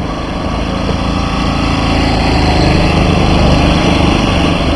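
Petrol golf carts driving past in a line, their small engines running steadily; the sound grows louder as a cart passes close, peaking about three and a half seconds in.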